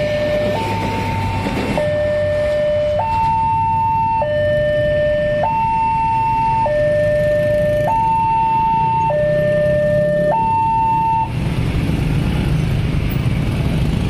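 Railway level-crossing warning alarm sounding a two-tone electronic signal, alternating between a high and a low tone about every second and a quarter. It cuts off about eleven seconds in.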